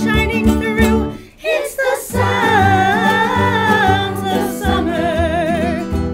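A song with acoustic guitar or plucked strings and a singing voice holding long notes with vibrato. The music drops away briefly about a second and a half in.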